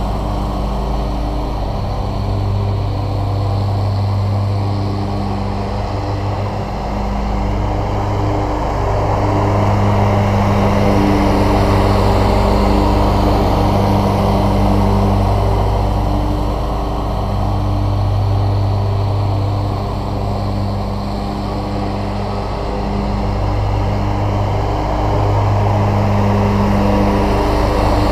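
Scag Cheetah zero-turn riding mower running steadily with its blades cutting grass, a continuous engine hum. The hum swells and eases gently every few seconds as the mower circles.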